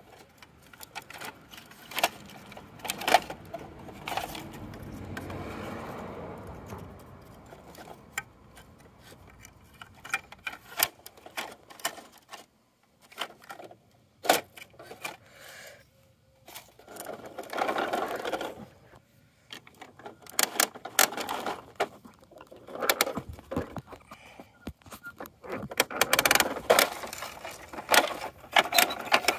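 Hard plastic clicking, rattling and scraping from a toy garbage truck's side-loader arm worked by hand as it grips and tips a small toy trash cart, with the truck itself handled near the end.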